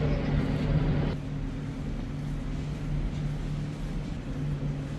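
Steady low mechanical hum, like an engine or motor running, with a rushing noise over it that cuts off abruptly about a second in.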